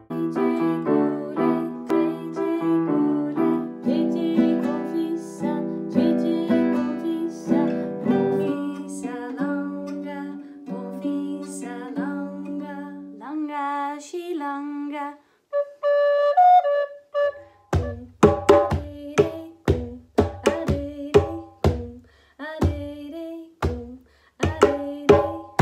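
A lever harp plucked in a ringing melody, with a woman singing a short rhythmic phrase. Then, from about two-thirds of the way in, a djembe struck by hand in a repeating rhythm.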